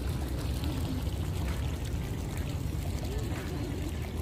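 Outdoor ambience: a steady low rumble with faint distant voices.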